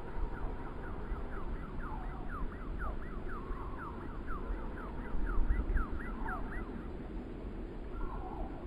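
Wind gusting and rumbling on the microphone. Over it, a fast run of short falling chirps, about four a second, for roughly six seconds.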